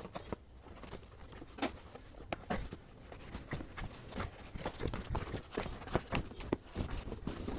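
Irregular clicks, taps and knocks of a boxed coffee maker and its packaging being handled.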